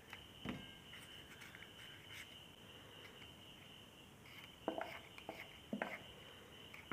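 Crickets chirring steadily in the background, with a few faint knocks about half a second in and twice near the end.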